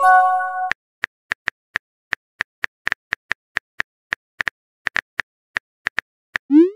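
Texting-app sound effects: a short chime of a few stacked tones as a message bubble appears, then a run of soft keyboard-typing clicks, about four a second, and near the end a quick rising pop, the message-send sound.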